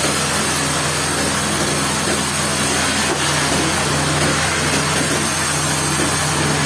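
Sawmill machinery running steadily: a low engine hum under a broad, noisy rush. The hum grows a little stronger about three and a half seconds in.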